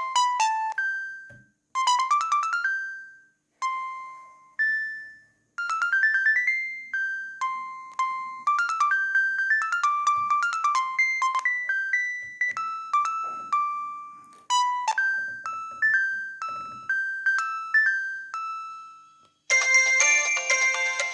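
LG B2050 (MG100) mobile phone playing a built-in ringtone: a synthesized melody of quick, separate notes with short pauses. About 19.5 seconds in, a different, fuller ringtone with many notes at once begins.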